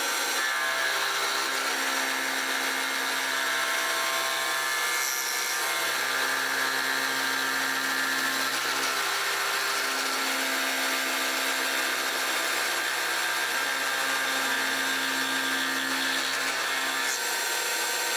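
Milltronics Partner 4 CNC milling machine cutting a part: a steady machining whine and hiss, with a lower motor hum that comes and goes every few seconds.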